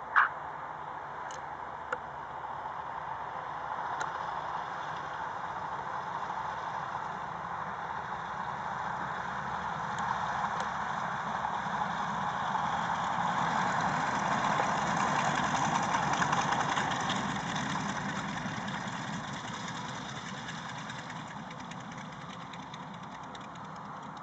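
Three radial engines of a 1939 Junkers Ju-52 tri-motor running throttled back as the plane rolls out after landing, growing louder as it passes close by, then fading as it moves away. A single sharp click sounds just after the start.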